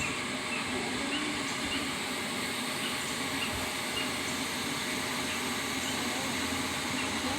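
Steady drone of a honeybee colony buzzing around an opened hive as its frames are worked.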